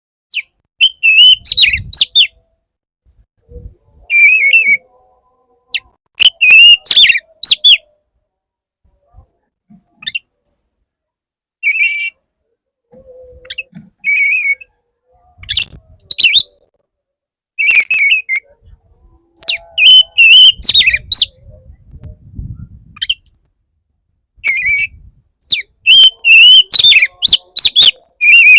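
Male oriental magpie-robin (kacer) singing in short, loud phrases of varied whistled notes with brief pauses between them. This is the male's courtship song, used to lure a female.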